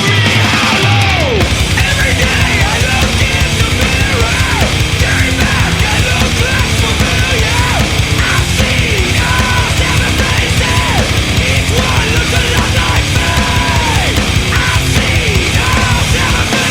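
Loud heavy metal music with fast, dense drumming and distorted guitar, full of short squealing notes that bend downward.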